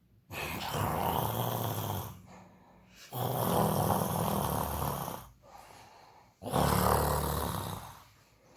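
Person snoring: three long snores, each about two seconds, with quieter breaths between them.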